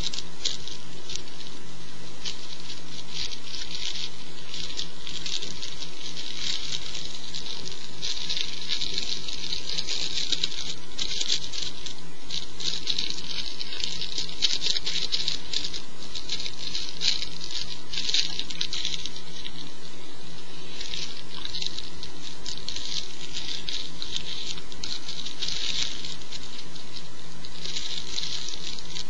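Crackly rustling of rolling paper and crumbled herb being handled and rolled into a joint, coming in irregular bunches over a steady electrical hum.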